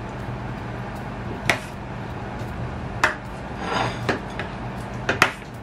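Metal ladle stirring a thick cream sauce in a stainless-steel saucepan: a handful of sharp clinks against the pan about a second apart, with a short scrape in between.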